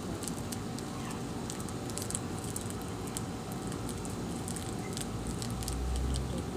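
Small irregular clicks and crackles from slime being handled while glitter is worked into it, over a steady background hum, with a low rumble near the end.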